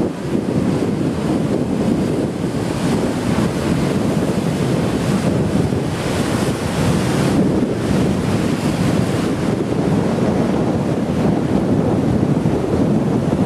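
Storm surf crashing against a sea wall in a dense, continuous roar, swelling louder and hissier a few times as breakers hit and throw up spray. Wind is buffeting the microphone.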